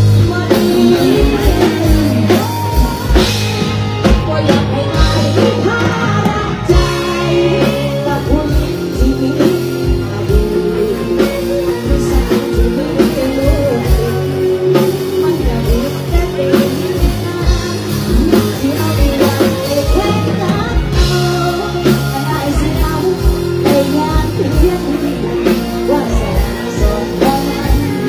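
Live band music in the Isan mor lam luk thung style, with a woman singing into a microphone over a steady, driving drum beat.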